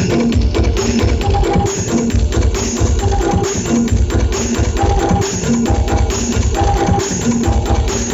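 Loud music played through a large outdoor sound system: a heavy bass beat with drums and percussion, and a short melodic phrase that repeats.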